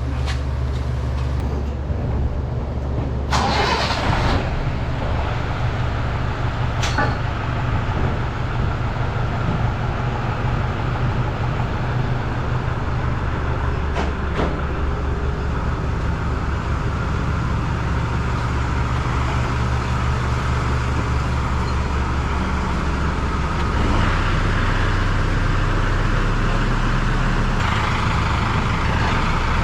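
A motor vehicle's engine running steadily with a low hum, its note shifting about two-thirds of the way through and again near the end. A few clattering knocks sound over it in the first half.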